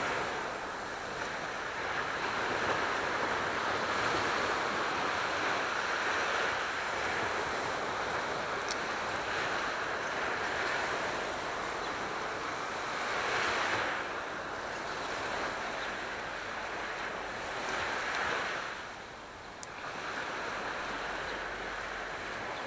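Aegean Sea surf: a steady hiss of waves washing in, swelling louder twice in the second half as waves break.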